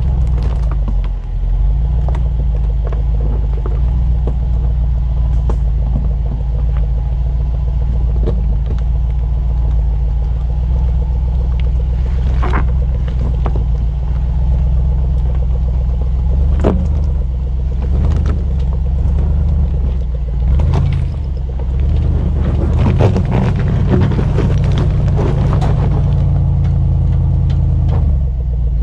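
Range Rover Sport crawling up a steep, loose rocky slope in low range: a steady low engine rumble, with scattered sharp knocks and crunches of rocks under the tyres. The knocks come thickest about two-thirds of the way through.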